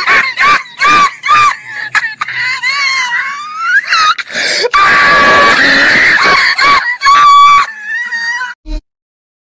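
A person screaming at a very high pitch: a string of shrill, wavering cries with short breaks between them, cutting off near the end.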